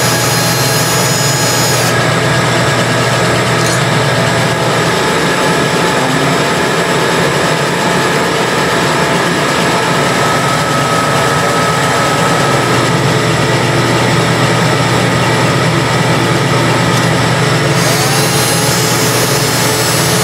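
Power-driven valve guide hone running steadily, sizing a cylinder head's valve guides to fit their valves.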